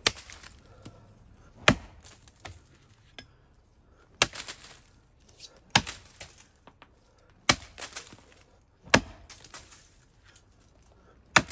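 Axe chopping into a standing tree trunk: seven hard, sharp strikes into the wood notch, one every one and a half to two and a half seconds.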